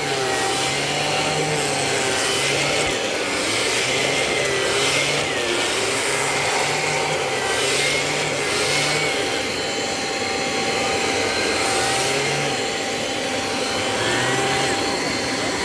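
Kirby Avalir upright vacuum running in compact mode, its spinning hand brush tool scrubbing over a carpeted cat tree with repeated rubbing strokes. Its low hum steps up and down in pitch as the tool is pushed and pulled.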